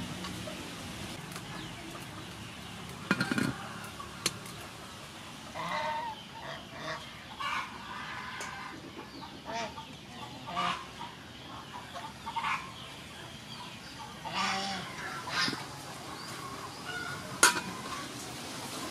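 Chickens clucking and calling on and off in short separate calls, with a few sharp knocks, the loudest near the end.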